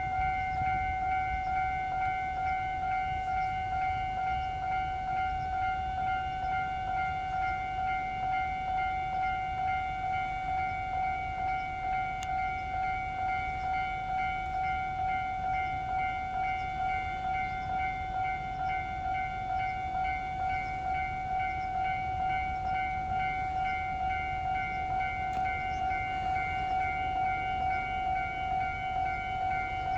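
Japanese railway level-crossing alarm ringing: an electronic bell repeating a single pitch in a steady, rapid rhythm, over a low rumble.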